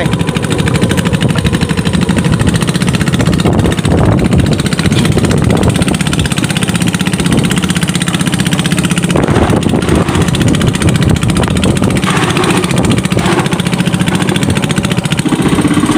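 Small boat engine running steadily, driving a wooden boat along a channel.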